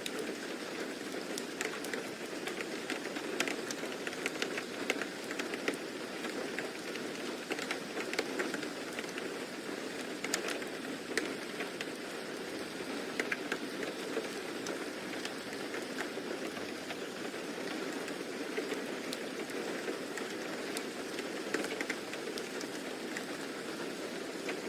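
Steady rain falling, with many small drops pattering and ticking on a hard surface.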